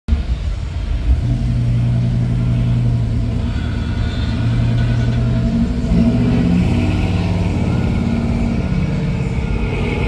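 Engine of a classic Chevrolet Impala convertible lowrider running at low revs as the car cruises slowly past, a steady low rumble whose pitch shifts a little a few times.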